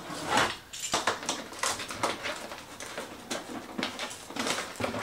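A cardboard box being handled while the Sauce Master food strainer's parts are packed into it: irregular rustles, scrapes and light taps of cardboard and parts, several a second.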